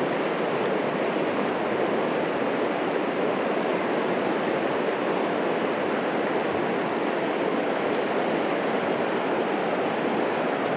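Steady rush of a river's flowing water, an even hiss that holds at one level throughout.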